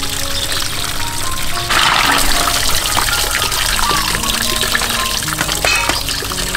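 Water from a small rock waterfall splashing and pouring into a metal bowl as snails are rinsed in it, with background music playing a slow melody over it.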